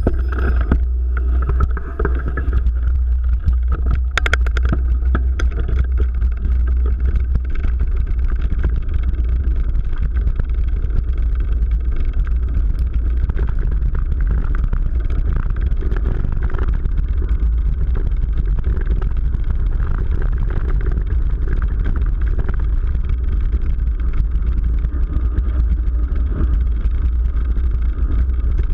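Mountain bike riding over a dirt trail: a steady low rumble of wind buffeting the bike-mounted camera's microphone and knobby tyres on the ground, with a few sharp rattles about four seconds in.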